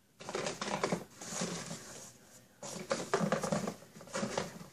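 Hand rummaging in a cardboard box of toys and packaging: a busy run of rustles and small clicks, with a short lull about halfway through.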